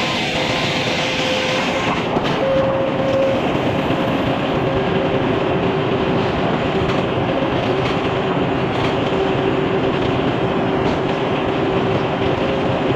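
Band sawmill running steadily as its blade saws through an oak log, with a steady hum that drops a little in pitch about four seconds in.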